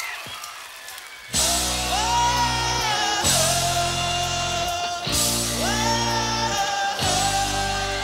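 Live pop-rock band kicking into a song about a second in, with keyboards and band playing held chords that change roughly every two seconds and a singing voice over them.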